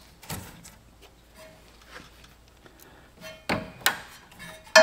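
A few scattered sharp clicks and knocks, the loudest near the end, as a pick tool pries the dust caps off the transmission cooler line fittings.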